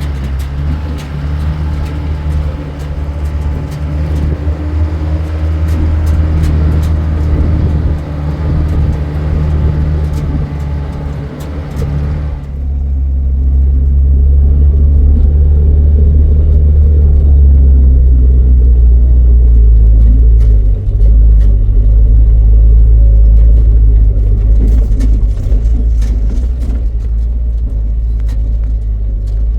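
A motor vehicle running on the move, a steady low engine drone with road rumble. About twelve seconds in the higher sounds and hiss cut off suddenly, leaving a louder low rumble.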